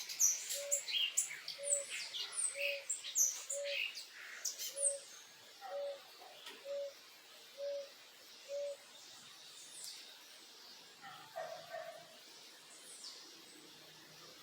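Backyard songbirds chirping and calling in quick, high notes, busiest in the first few seconds and thinning out after. Under them, a low hooting note repeats steadily about once a second, about ten times, then stops.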